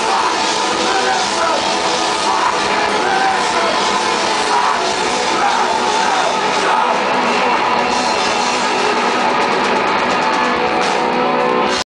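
German punk band playing live at full volume: distorted electric guitars and drums, with the singer's voice over them in the first half and heavier cymbal crashes near the end.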